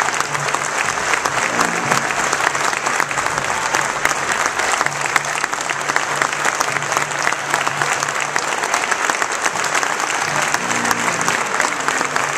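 Large audience clapping steadily in a standing ovation.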